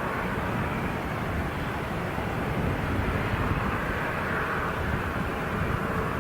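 Boeing 787-9 airliner's jet engines running, a steady rumble with a hiss that swells a little around the middle.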